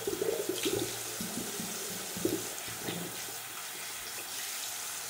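Tap water running steadily into a sink, with irregular splashing in the first few seconds as hands scoop water onto a face for a plain-water rinse.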